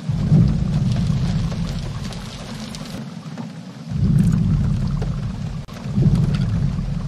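Three deep booming thuds of giant dinosaur footsteps, one at the start, one about four seconds in and one about six seconds in, each dying away over a second or two.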